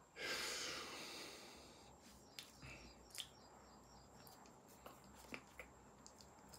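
Quiet sounds of hands and clothing moving during signing: a short rustling hiss just after the start, then scattered soft taps and clicks.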